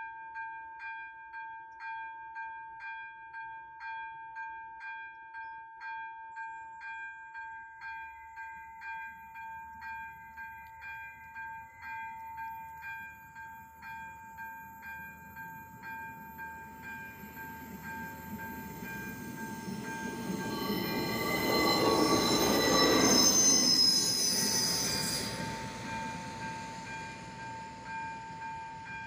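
AŽD ZV-02 electronic level-crossing bell ringing in an even repeating pattern, about one and a half strokes a second. About two-thirds of the way through, a passenger train's rumble builds, passes over the crossing with high wheel squeal at its loudest, and fades while the bell rings on.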